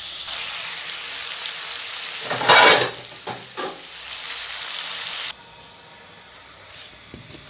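Bone-in chicken pieces frying in hot oil in a karahi: a steady sizzle, with a louder burst of sizzling about two and a half seconds in. A little after five seconds it drops suddenly to a quieter steady hiss, the pan now covered with a glass lid.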